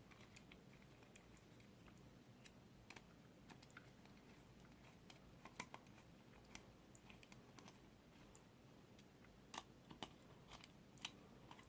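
Faint, scattered small clicks and ticks of a hex key and bolts being threaded into a bicycle stem's faceplate by hand, a few louder clicks near the end.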